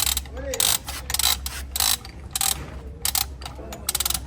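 A ratcheting hand tool clicking in short repeated strokes, about two a second at an uneven pace, over a steady low hum.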